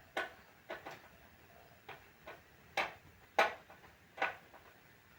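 A small screwdriver tightening the screw on a plastic fan control unit: a series of irregular light clicks and ticks, about one every half second.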